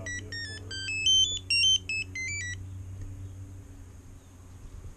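A quick melody of short electronic beeps stepping up and down in pitch, typical of the startup tune that a Vortex 250 Pro FPV racing quad's ESCs play through its motors at power-up. The tune stops about two and a half seconds in, leaving a low steady hum.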